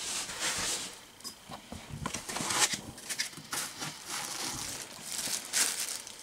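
Packaging being handled and unwrapped: irregular rustling and crinkling with scattered small clicks and knocks.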